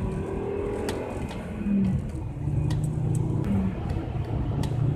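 Volvo car's engine and tyre noise on a wet track, heard from inside the cabin while lapping; the engine note gets louder about halfway through as the car accelerates. Scattered sharp ticks sound over it.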